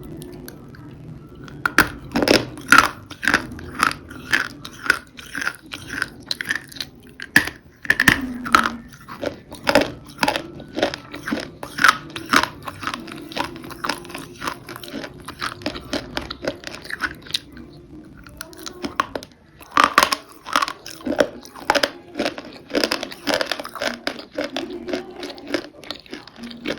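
Crunchy food being bitten and chewed close to the microphone, with sharp crunches about two a second. There is a short lull about nineteen seconds in, after which loud crunches resume.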